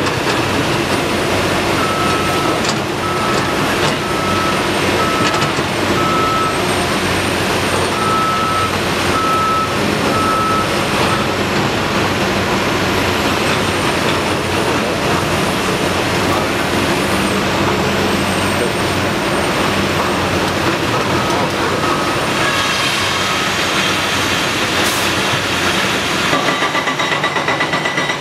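Caterpillar 345C L excavator's diesel engine running steadily under working load. A backup alarm beeps evenly, about once a second, for several seconds early on and again briefly later.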